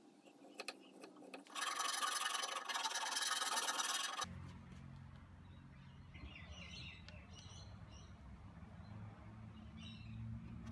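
A flat metal file scraping across the end grain of a hardwood tenon, rounding it off, for about two and a half seconds starting a second and a half in. Then a quieter stretch of faint wooden rubs and knocks as a mortised leg is pushed onto the tenon, over a low hum.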